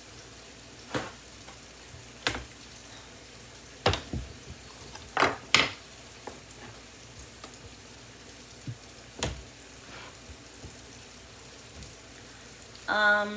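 Mushrooms sauteing in a frying pan, a steady sizzle, with a handful of scattered knocks and clatters of kitchen utensils and dishes.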